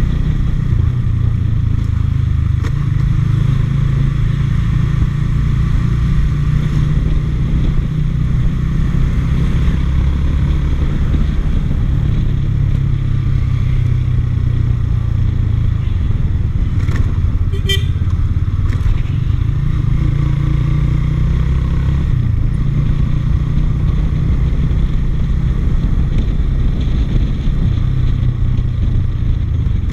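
Motorcycle engine running steadily under way, its pitch shifting a little as the speed changes. A brief high-pitched sound cuts in a little past halfway.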